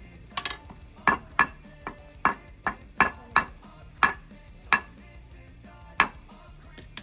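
Small hammer tapping a metal fitting onto the belt of a wakan (Japanese snowshoe): about a dozen sharp metallic taps at an uneven pace, each with a brief ring.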